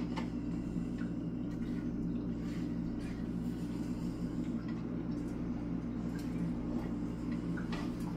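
A steady low hum fills the room, with faint scrapes and taps of a wooden spoon stirring thick sauce in a pot.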